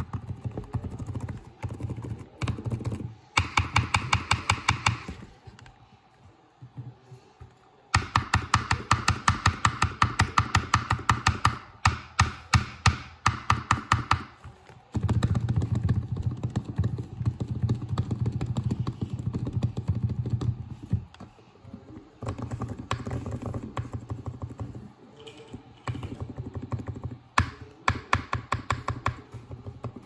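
Keys of a lubed Razer Huntsman Mini optical keyboard being pressed rapidly, giving fast clattering trains of keystrokes in several bursts with short pauses between.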